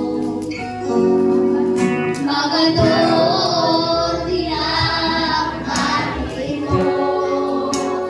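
A group of children and adults singing a hymn together, the voices holding long notes.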